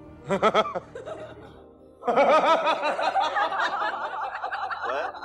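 A man laughing from a film soundtrack: a short chuckle in the first second, then a long run of laughter from about two seconds in, with music underneath.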